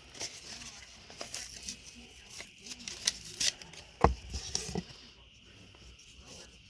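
Packaging being handled and opened, crinkling and rustling, with scattered small clicks and one sharp click about four seconds in.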